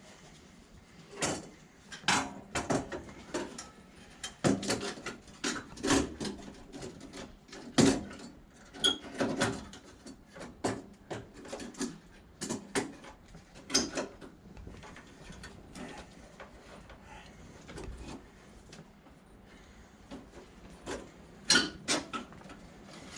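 Irregular clicks, knocks and scrapes of a part being pushed and worked into place by hand at the front of a VW T3, likely a radiator cooling deflector plate or headlight part. The knocks come in clusters through most of the first two-thirds, with a few more near the end.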